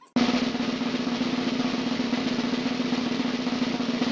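Snare drum roll that starts abruptly and holds at an even level, with a steady low tone beneath it.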